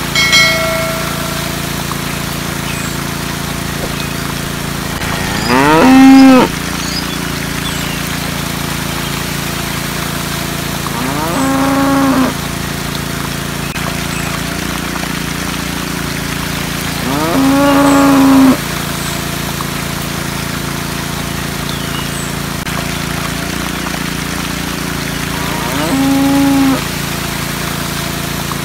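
A cow mooing four times, each call about a second long, rising in pitch and then held, over the steady hum of a small electric water pump motor. A short chime sounds at the very start.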